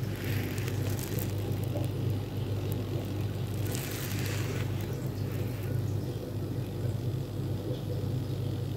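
Steady low machine hum, with two short bursts of hiss: one at the start and one about four seconds in.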